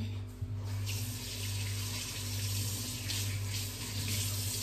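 Kitchen tap running, with water splashing as hands are rinsed under it, over a steady low hum.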